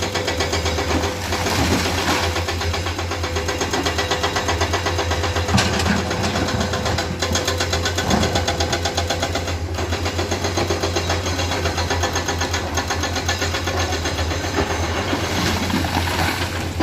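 Komatsu hydraulic excavator's diesel engine running steadily with a rapid, even pulsing.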